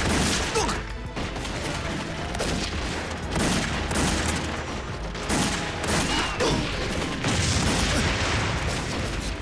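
Dense battle gunfire, many rifle and machine-gun shots overlapping: heavy incoming fire. A film score plays underneath.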